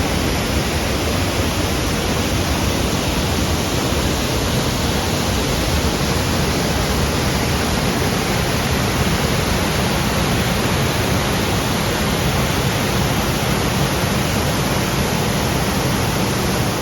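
Waterfall close by: loud, steady rushing of falling water.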